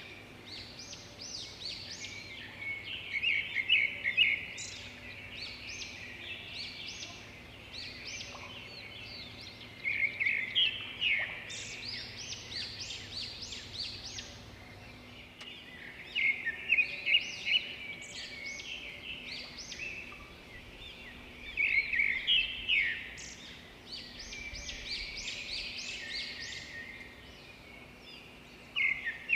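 A chorus of songbirds chirping and trilling, with a louder burst of rapid chirps about every six seconds.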